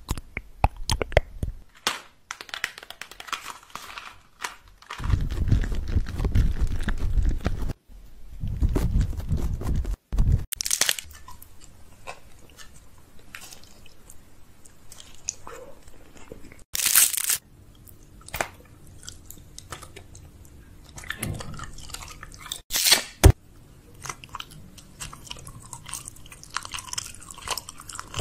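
Close-miked ASMR mouth sounds: crunching and chewing noises with sharp crackly bursts now and then. A heavy low rumble runs for several seconds in the first third.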